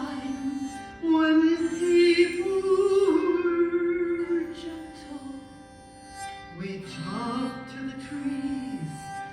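Background music: a slow melody of long held notes that glide between pitches, over steady sustained tones beneath.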